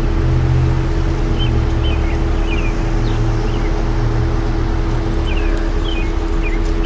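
Century 1150R rotator wrecker's diesel engine running steadily with a constant hum while the boom holds the lifted SUV. Small birds chirp several times over it, in two short clusters.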